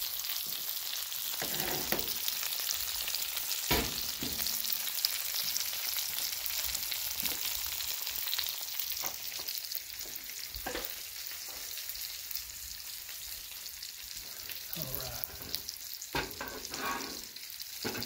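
Pork butt steaks in barbecue sauce and grease sizzling on a hot Blackstone flat-top griddle, a steady frying hiss. A few light clicks and knocks, with more of them near the end.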